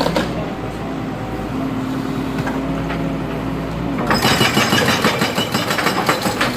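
Excavator's diesel engine running steadily, then about four seconds in its hydraulic breaker starts hammering, a rapid run of blows that stops abruptly near the end.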